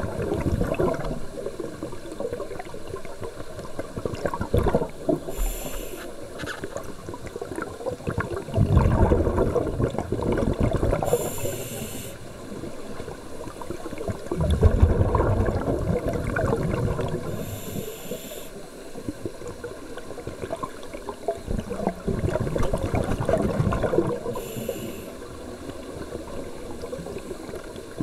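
Scuba regulator breathing underwater: short hissing inhalations through the demand valve alternate with longer, louder bursts of exhaled bubbles, in a slow cycle of about six seconds.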